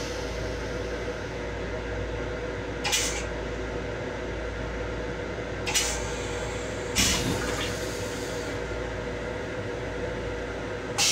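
Steady hum of an M7 railcar's restroom, with short hisses at about three and six seconds in, a longer hiss at about seven seconds, and a loud hiss starting at the very end.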